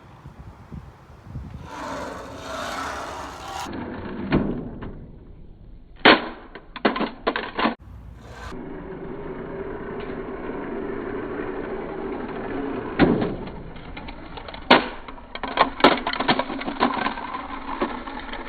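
Sharp clicks and knocks, some in quick clusters, which could be hard plastic toys handled and knocked together. From about a third of the way in, a steady engine-like hum with an even pitch runs under them.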